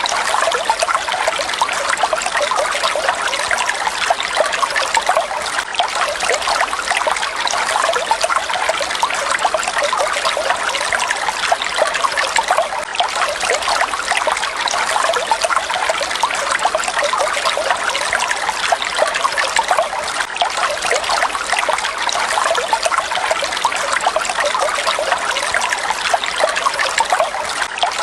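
Falling water splashing and trickling in a steady, even rush with no change.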